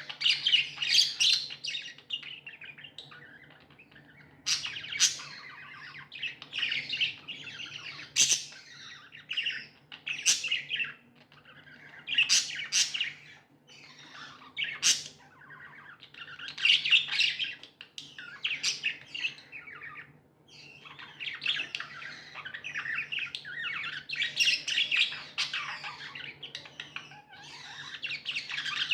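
Pet budgerigars chirping and warbling in bouts a few seconds long, with sharp squawks here and there.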